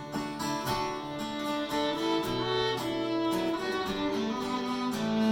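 Fiddle playing a melody over strummed acoustic guitar, an instrumental break in a folk song with no singing.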